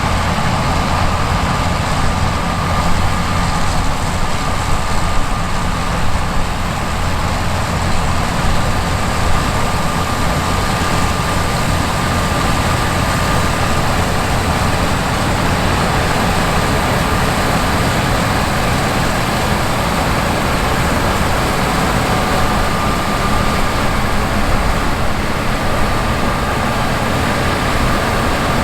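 Gleaner S97 combine's 8.4-litre AGCO Power seven-cylinder twin-turbo diesel running steadily under load while harvesting wheat. A low drone with a rushing mechanical noise over it, and a thin high whine that comes and goes.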